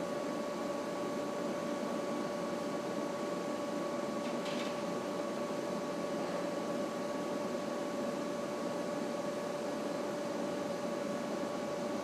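CNC plate rolling machine running: a steady mechanical hum with a constant tone and a higher, fainter one above it. A faint click about four and a half seconds in.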